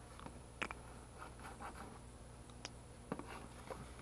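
Cardboard box handled by hand: soft rubbing and scraping of fingers on the box, with a few sharp ticks, the loudest about half a second in and again about three seconds in.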